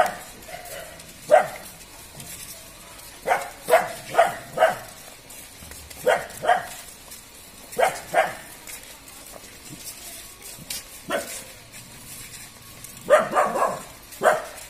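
A dog barking repeatedly, in short runs of two to four barks with pauses between.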